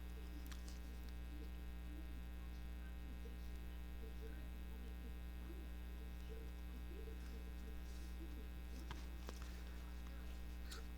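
Steady electrical mains hum with a buzz of overtones, and a few faint light taps near the end.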